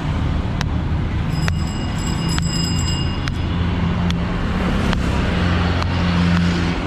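Steady rumble of road traffic, with sharp ticks about once a second as a knife cuts around the hard, woody shell of a wood apple.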